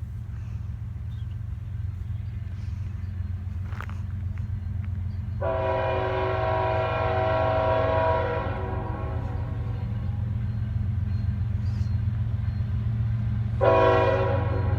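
A loud chord-like air horn of the train-horn type sounds for about three seconds, about five seconds in, then blasts again just before the end. A steady low rumble runs underneath.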